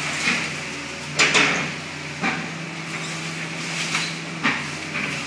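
Hitachi excavator's diesel engine running with a steady hum while its demolition clamp attachment works the trash, with sharp knocks and clanks about once a second, the loudest about a second in.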